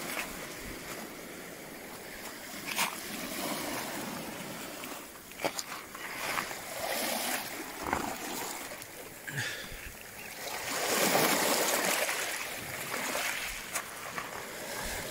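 Small waves breaking and washing over shingle at the water's edge, swelling and easing, with a few short sharp clicks and splashes; the loudest wash comes about eleven seconds in.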